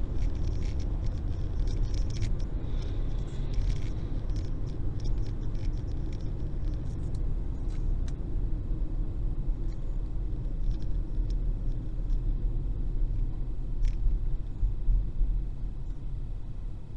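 Steady low rumble of a car's road and engine noise heard from inside the cabin while driving at highway speed, with occasional faint clicks.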